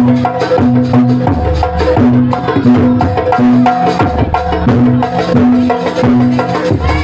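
Live jaranan accompaniment music: an ensemble of hand drums and tuned gongs and metallophones, with dense drum strokes under repeating pitched gong-like notes.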